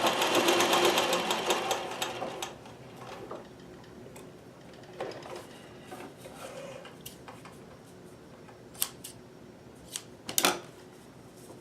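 Consew sewing machine stitching rapidly through felt for about two and a half seconds, then stopping. After that there are only faint handling noises and a few sharp clicks, the loudest near the end.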